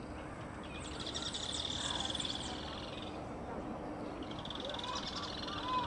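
Masked water tyrant giving two buzzy, rattling calls: the first about a second in, lasting about two seconds, the second starting past the middle.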